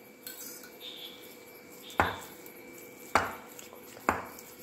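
A spoon mixing thick mashed-potato filling in a glass bowl, with soft scraping and three sharp knocks of the spoon on the bowl, about a second apart, in the second half.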